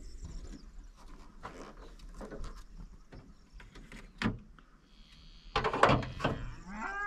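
Fiat Egea's bonnet being lifted and propped open on its plain support rod: scattered light clicks and knocks of metal handling, a sharp click about four seconds in and a louder clatter around six seconds in.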